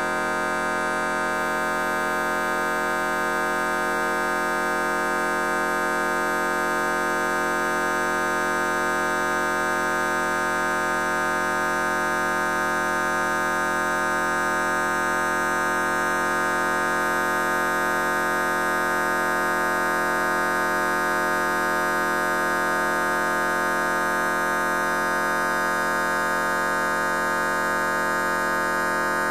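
Fart sound effect slowed down and stretched to an hour, heard as a steady buzzing drone made of many held tones, like a sustained organ chord.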